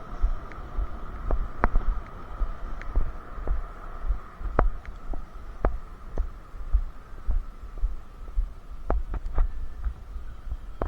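Irregular low thumps, two or three a second, from a body-worn camera jostled as the player moves, with scattered sharp clicks and a steady faint hum.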